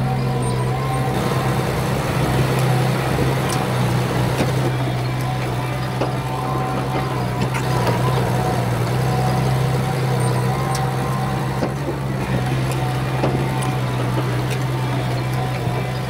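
Komatsu bulldozer's diesel engine running steadily, with scattered short clicks over the drone.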